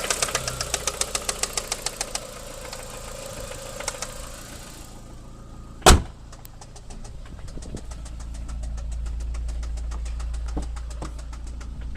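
VW Golf 4's 1.8 20V AGN four-cylinder engine running with a rhythmic knock, about six a second, that appeared after hard driving; the knock fades out about two seconds in. A single loud sharp click comes near the middle, then the engine runs on more quietly with a light fast ticking.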